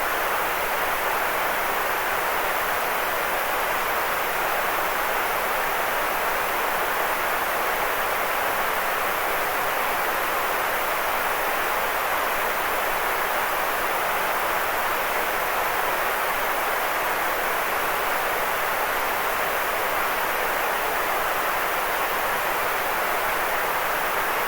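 Steady white noise: an even, unchanging hiss with no tones or breaks, fullest in the middle range.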